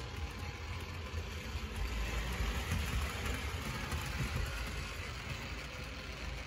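Hornby Dublo 2-6-4 tank locomotive running slowly round a curve, its small electric motor and metal wheels making a steady rumble on the metal three-rail track. It is crawling on low battery power, held back by the friction of its metal wheels on the curve; the noise swells a little a couple of seconds in and eases toward the end.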